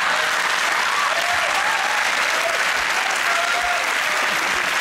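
Studio audience applauding steadily, with a few voices faintly heard over the clapping.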